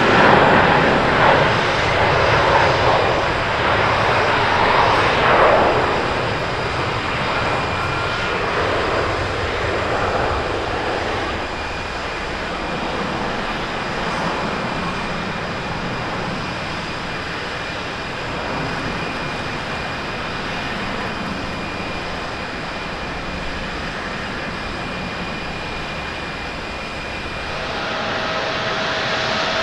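Airbus A330-300 jet airliner on its takeoff run: the engines at takeoff thrust make a loud, even roar that eases off over the first dozen seconds as it lifts off and climbs away, leaving a steady distant rumble. Near the end a second jet airliner, a Boeing 787-8 on the runway, rises in with a steady whine.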